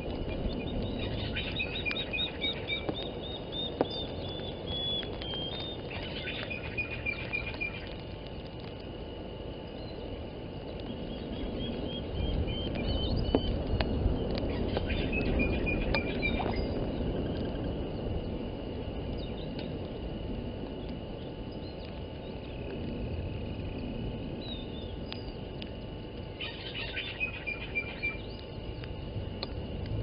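Wind rumbling on the microphone, gusting stronger through the middle, with wild birds calling: fast runs of high notes that step downward in pitch, heard three times, about a second in, mid-way and near the end. A faint steady high tone runs underneath.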